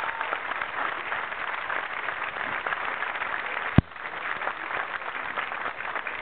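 Audience applause, a dense steady patter of clapping, with one sharp knock a little past halfway, after which the clapping thins slightly.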